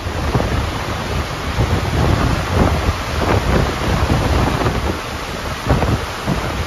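Storm-surge floodwater rushing and churning through a flooded parking garage, with strong wind buffeting the microphone in a steady low rumble.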